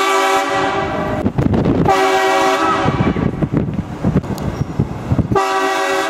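Truck-mounted train horn sounding three short blasts of a multi-tone chord: one right at the start, one about two seconds in, and one near the end.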